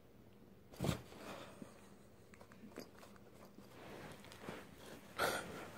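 Thin paperboard 12-can soda carton crinkling and rustling as a cat wriggles and rolls inside it, with scattered small crackles and two louder crunches, about a second in and near the end.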